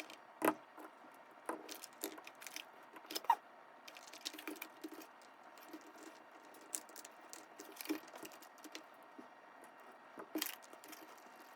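Faint, scattered clicks and taps of small plastic and metal parts being handled as wheels are fitted back onto an Axial SCX24 1/24-scale RC crawler. The sharpest clicks come about half a second in, a little after three seconds, and near the end.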